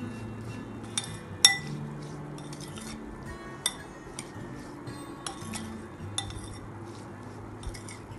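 Metal spoon stirring diced onion, tomato and boiled potato in a glass bowl, clinking and scraping against the glass at irregular moments, with the sharpest clink about a second and a half in.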